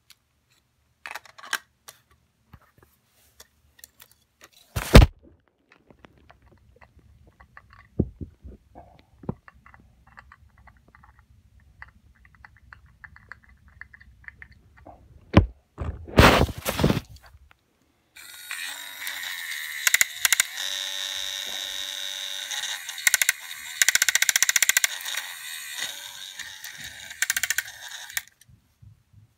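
Sealed plastic bags of plastic toy train track pieces being handled: scattered clicks and knocks, with a sharp knock about five seconds in and another around sixteen seconds, then about ten seconds of steady crinkling of the plastic bags.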